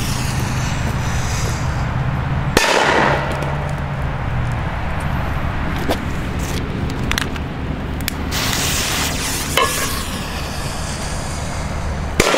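Small firecrackers going off in a frying pan and a steel cooking pot: a few sudden bangs, spread out, with the clearest about two and a half seconds in and just before the end.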